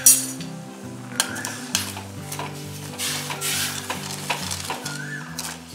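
Metal ladle stirring sugar and water in a steel kadhai, scraping and clicking against the pan a few times, as a sugar syrup is started. Soft background music with slow sustained notes plays underneath.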